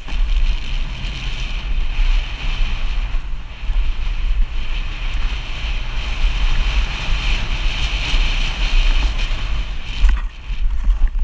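Wind buffeting the microphone of a helmet-mounted camera on a downhill mountain bike ridden fast down a dirt trail, a heavy low rumble, with steady hiss from the tyres on the dry dirt and gravel.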